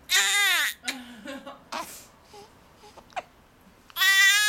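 Baby crying: a short wail falling in pitch at the start, then a longer, loud wail beginning near the end.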